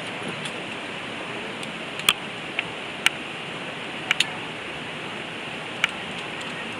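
Steady rushing of a waterfall, with a handful of sharp clicks and knocks from about two seconds in.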